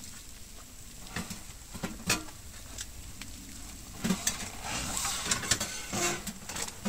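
Metal parts of a camping wood stove being handled and fitted: scattered light clinks and knocks, busiest between about four and six seconds in.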